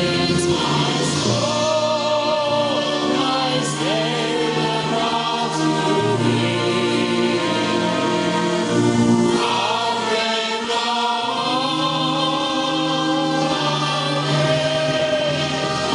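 A choir singing a slow piece in held chords, several voice parts sounding together.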